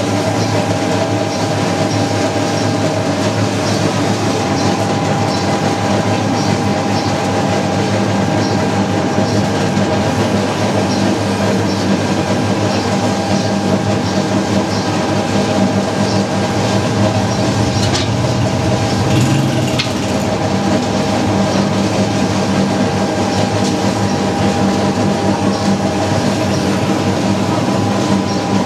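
Motor-driven naswar machine running steadily, its steel pan turning against a fixed pestle as it grinds the tobacco snuff mash. It makes a steady mechanical hum with a light, regular clicking.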